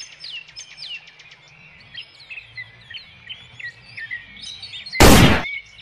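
Birds chirping, and one loud gunshot about five seconds in.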